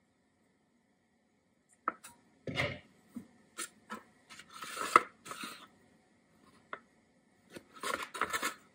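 A metal offset spatula scraping through thick batter and clicking against the sides and bottom of a disposable aluminium foil baking pan, in irregular scrapes and taps that start about two seconds in.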